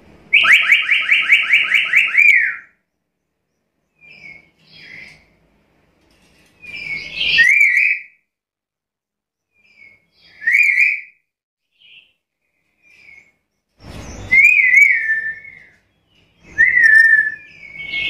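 Black-capped lory calling: a fast run of about ten loud, shrill whistled notes right at the start, then shorter separate whistles and calls with pauses between them.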